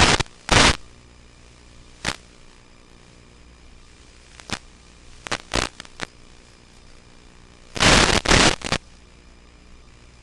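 Irregular bursts of crackling static from an analog FPV video receiver as the radio link breaks up, over a faint steady hum. The bursts vary from short cracks to a cluster about a second long near the end.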